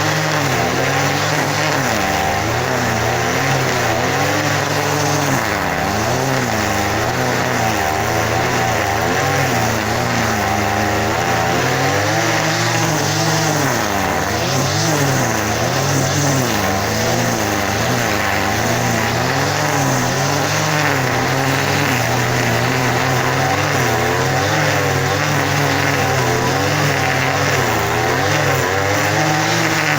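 An engine running steadily, its speed rising and falling every second or two so that its pitch wavers up and down.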